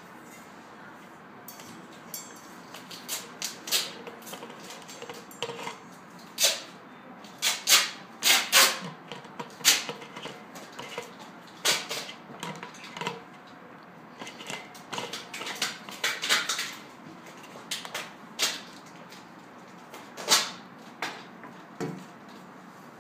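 Black plastic lid and push lever of a stainless steel thermal vacuum carafe being worked by hand: an irregular string of sharp clicks and clacks. Near the end a duller knock as the carafe is set down on a table.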